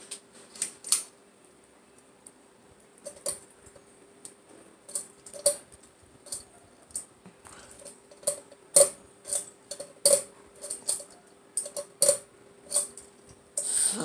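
Hunter Discovery ceiling fan running with a faint steady hum, over irregular sharp metallic clicks and clinks about one or two a second from its pull chain and metal pendant, ending in a louder rattle.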